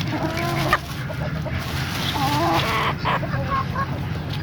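Chickens giving two drawn-out clucking calls, one at the start and another about two seconds in, over a steady low hum, with a sharp click just under a second in.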